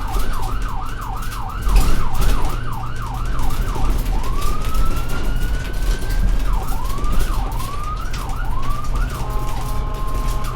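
Ambulance siren on a moving vehicle. It starts in a fast up-and-down yelp at about three sweeps a second, switches to one long rising wail about four seconds in, drops back to a quicker yelp, then settles into a steady tone near the end. A low vehicle rumble runs underneath, with a thump about two seconds in.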